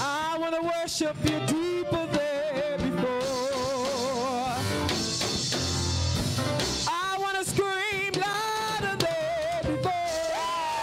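Women's praise team singing a gospel worship song into microphones over a live band, the lead voice holding notes with a wavering vibrato between phrases.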